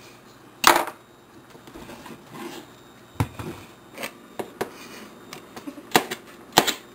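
Chef's knife knocking on a plastic cutting board while slicing green bell pepper: about half a dozen sharp, irregular knocks, the loudest just under a second in.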